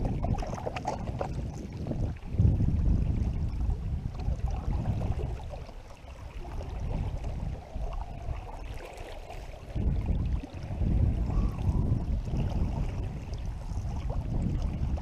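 Canoe being paddled: paddle strokes and water sloshing along the hull, under an irregular low rumble of wind buffeting the microphone.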